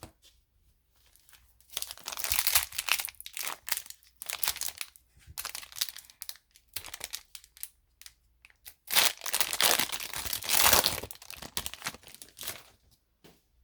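Plastic wrapper of a hockey trading-card pack being torn open and crinkled by hand, in two loud spells of crinkling and tearing, one about two seconds in and a longer one about nine seconds in, with lighter rustling between.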